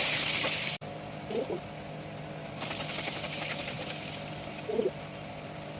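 Frying in hot oil: a loud sizzle that cuts off abruptly about a second in, followed by a fainter steady sizzle and low hum.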